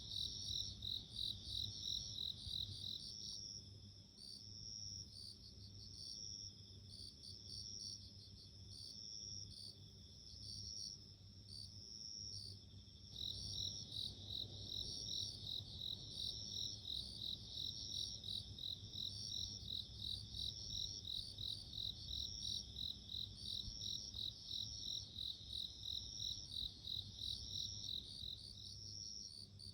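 Japanese bell crickets (suzumushi) chirping in rapid, evenly repeated high-pitched pulses. The loudest singer falls silent a few seconds in and starts again about ten seconds later, while another keeps chirping.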